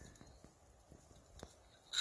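Faint, scattered clicks of a homemade folding bucksaw's metal frame tubes and tension rod being handled and fitted together, with a sharper metallic click at the end.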